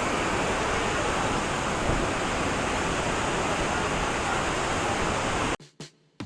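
Kuntala waterfall: a steady rush of falling water. It cuts off abruptly about five and a half seconds in, followed by near silence and a few short clicks.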